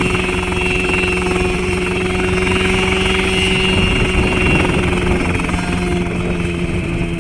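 Homemade light helicopter running on the ground: a steady engine drone with a fast low pulsing from the turning main rotor.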